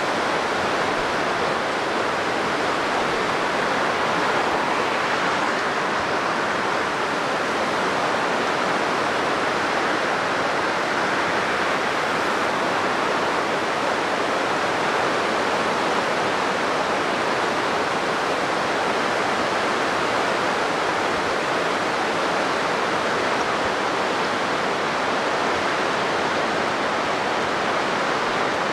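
Steady rush of river water flowing fast.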